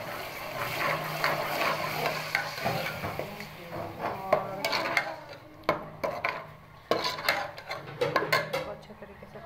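A steel ladle stirs yogurt into a frying onion-tomato masala in a metal pot, with a light sizzle and a scraping sound. From about halfway on, the ladle repeatedly clinks and knocks against the side of the pot.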